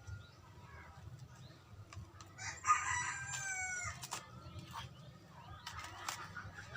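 A rooster crowing once, about two and a half seconds in: a single call of about a second and a half that dips in pitch at its end. A few sharp clicks or knocks follow.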